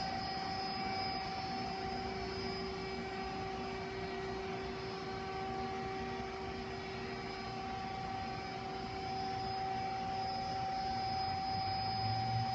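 2003 Okuma ES-L10 two-axis CNC turning center running, giving a steady whine over a low hum, which gets a little stronger near the end.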